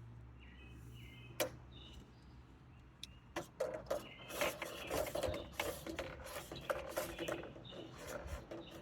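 A steel tape measure being pulled out along a gutter: one click about a second and a half in, then from about three and a half seconds a rapid run of clicking and rattling as the blade runs out.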